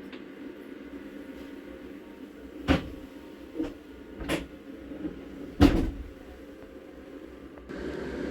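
Five sharp knocks and bangs over the steady hum of a sleeping-car compartment, like cupboard doors or compartment fittings being handled, opened and shut. The loudest bang comes a little past halfway.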